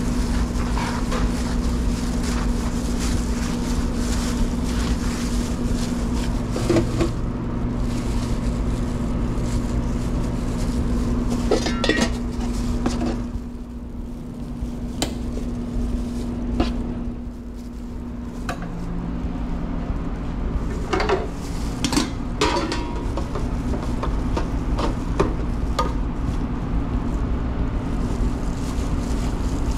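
Steady hum of commercial kitchen equipment, a low drone with several fixed tones that drops quieter for a few seconds midway, with scattered clinks and taps of utensils and tongs against stainless-steel pans.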